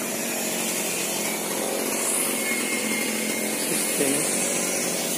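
Small sawmill's stationary engine and belt-driven saw running steadily, a continuous mechanical drone.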